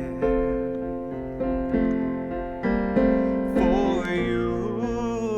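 Slow piano ballad: sustained chords struck every second or so, with a wavering held melody line over them in the second half.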